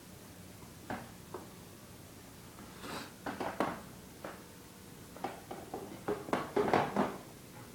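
A series of light knocks and clicks, a couple near the start, more a few seconds in, and a quick cluster near the end, like objects being handled.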